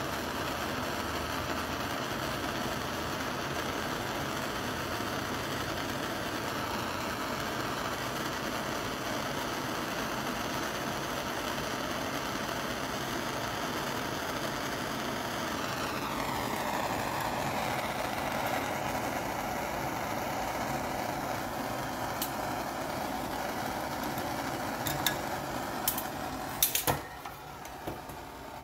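Handheld gas torch flame hissing steadily while small steel screws are heated red hot for hardening; about halfway through the tone of the flame slides lower. Near the end come a few sharp clicks and the flame noise stops.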